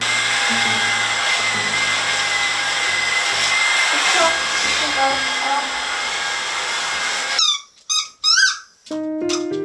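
Vacuum cleaner running steadily with a high whine, stopping suddenly about seven seconds in. It is followed by a squeaky dog toy squeaked several times in quick chirps as the dog bites it, then background music begins near the end.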